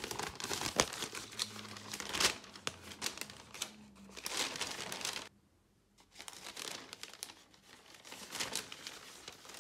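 A large folded paper leaflet being unfolded and handled, the paper crinkling and rustling in irregular crackles, with a short pause about halfway through.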